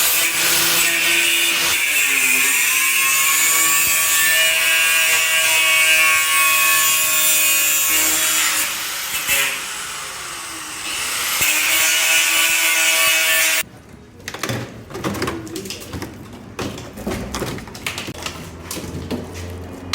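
Power tool running hard for about fourteen seconds, its pitch dipping and recovering as it bites into the work, then stopping suddenly. Scattered knocks and clicks follow.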